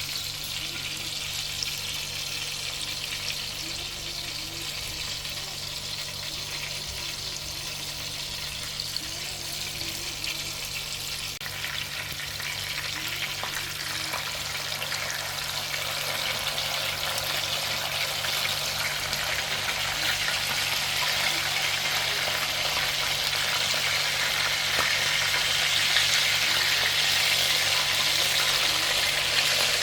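Chapli kababs shallow-frying in oil, a steady sizzle that grows louder from about halfway through.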